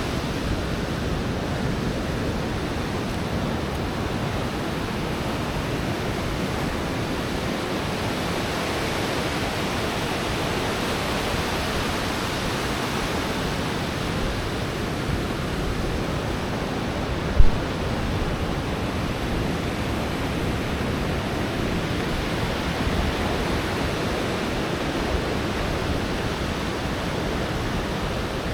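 Pacific Ocean surf washing onto a sandy beach: a steady rushing hiss that swells a little near the middle. A single brief low thump about two thirds of the way through.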